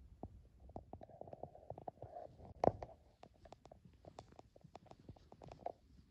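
Footsteps crunching in snow: a dense, irregular run of small crackles, with one louder crunch about two and a half seconds in.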